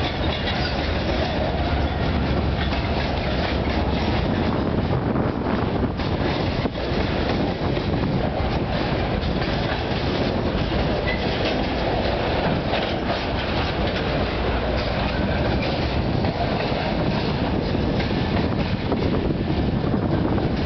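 Freight cars of a BNSF train rolling past close by: a steady rumble of steel wheels on rail, with scattered clicks and clacks as the wheels cross the track.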